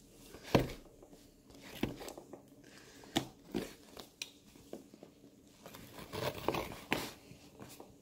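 Parcel packaging being handled and opened by hand: scattered rustles, crinkles and short sharp clicks at irregular intervals.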